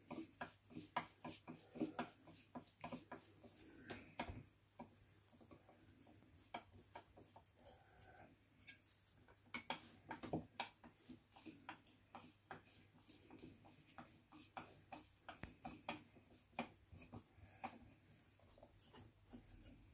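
Faint, irregular small clicks and scrapes of a flat-blade screwdriver working screws out of the steel mounting rail on a Suzuki GT750 carburettor bank.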